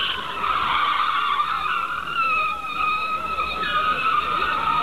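Car tyres squealing in a long screech with a wavering pitch as the car is driven hard.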